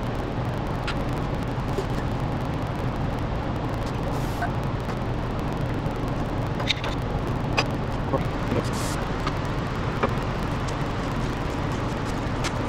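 Scattered light metallic clicks and taps as a brake caliper is worked over a new disc rotor, over a steady low droning background hum.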